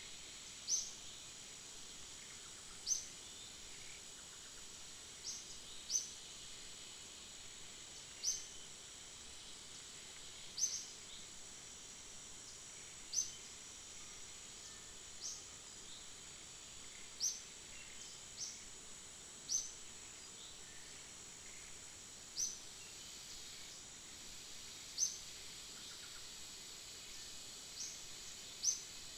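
Outdoor natural ambience: a steady high insect drone with short, high, rising chirps repeated about every two seconds.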